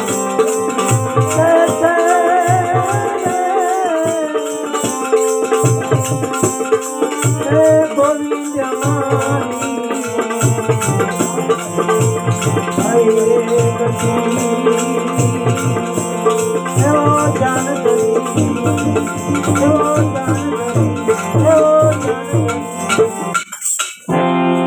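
Instrumental interlude of Indian devotional folk music: a hand drum keeps an even, fast rhythm with rattling, jingling percussion, under a wavering melody line. About a second before the end the music breaks off abruptly and steadier held tones take over.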